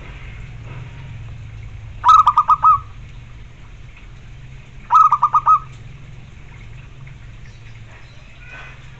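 Zebra dove (perkutut) cooing: two short phrases of five or six rapid, clipped notes, about three seconds apart.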